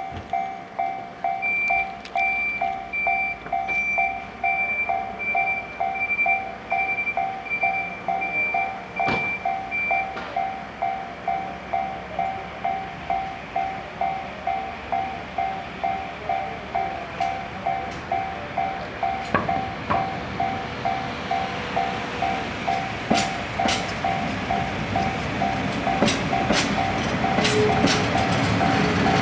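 Level crossing warning bell ringing at about two strikes a second, with a higher beeping tone pulsing alongside it for the first third. Past two-thirds through, the Sagano Scenic Railway trolley train draws near, its running noise and wheel clicks growing louder.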